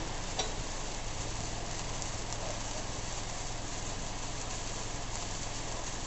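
Handheld firework wand spraying sparks with a steady hiss, over a low hum, with a single short crackle about half a second in.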